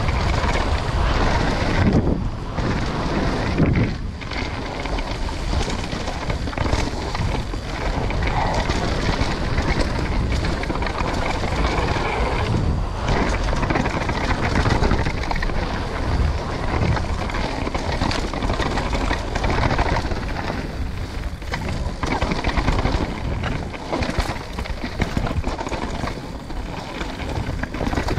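Downhill mountain bike ridden fast over rough ground, heard from a rider-mounted camera: wind rushing over the microphone with a constant clatter and knocking from the bike and tyres on the trail.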